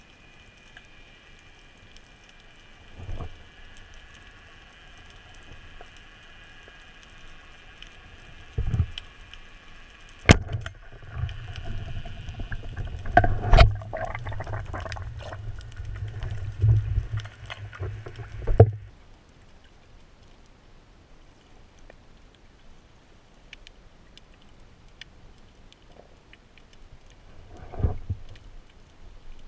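Underwater recording through an action-camera housing: muffled thumps and a low rumbling clatter as the diver's gloved hands handle the speargun and gear right against the camera. A faint steady high whine runs underneath and cuts off suddenly in the middle. Single muffled knocks come before and after.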